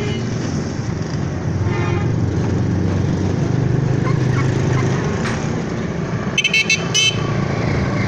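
Steady low rumble of road traffic with a short vehicle horn toot about two seconds in. Near the end, a loud rapid burst of short sharp sounds lasting under a second.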